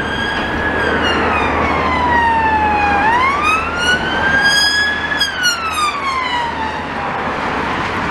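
Emergency vehicle siren in a slow wail: the pitch falls, sweeps back up about three seconds in, then falls again, over low traffic rumble.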